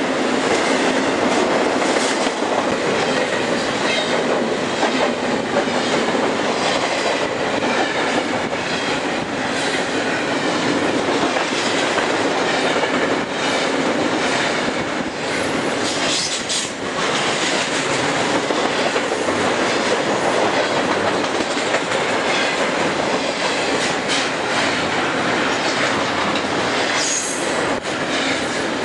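Freight train's intermodal cars passing at speed close by: a steady rush of steel wheels on rail, with regular clicks as the wheels cross rail joints. There is brief high wheel squeal about halfway through and again near the end.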